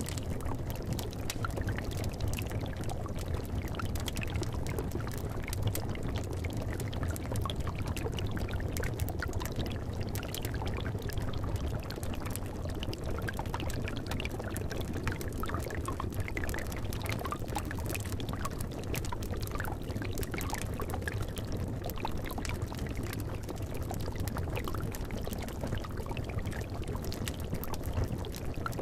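Liquid in a cauldron bubbling steadily with a low gurgle, dotted throughout with many small pops and crackles.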